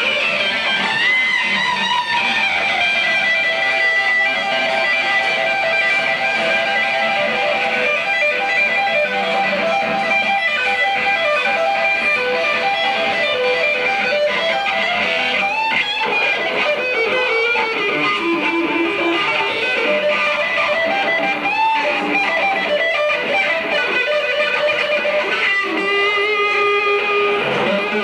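Electric guitar played loud and sustained in an instrumental solo, with notes that slide and bend up and down.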